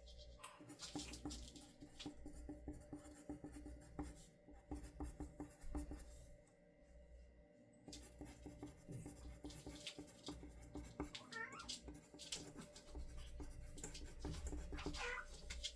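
Soft scattered tapping and scratching, with two brief, faint wavering calls about four seconds apart near the end.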